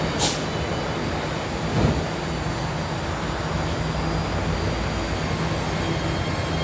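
BART Fleet of the Future train's doors shut with a sharp clack near the start, and the train's electric propulsion hums steadily as it starts to pull out of the station.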